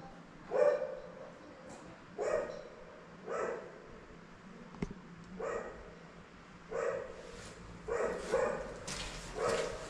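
A dog barking repeatedly, about eight single barks at uneven intervals.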